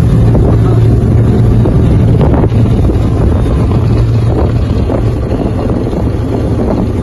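Motorboat engine running steadily with a low hum, under a loud rush of wind on the microphone and churning wake water.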